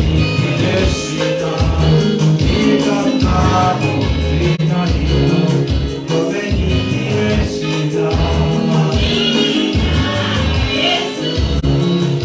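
Gospel praise-and-worship music: a group of singers over a band with a steady bass beat.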